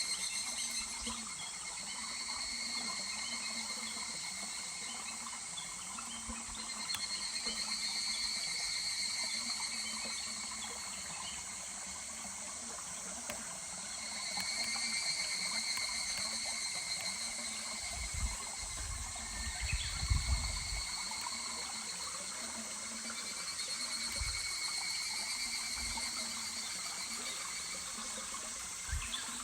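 Higurashi (evening cicadas) calling in repeated swells of rapid, high, pulsing trills, several overlapping, over the steady rush of a babbling mountain stream. A few low thumps come around two-thirds of the way through.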